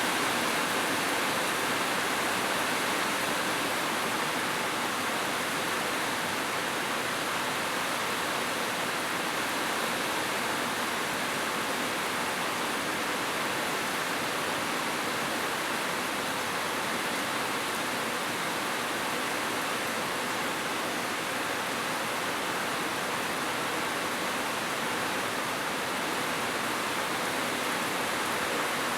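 Steady rushing water, like a waterfall or fast stream: an even, unbroken hiss.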